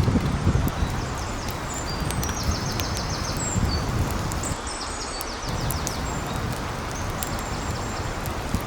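Outdoor ambience: wind rumbling on the microphone under a steady hiss, with short high chirps and trills now and then.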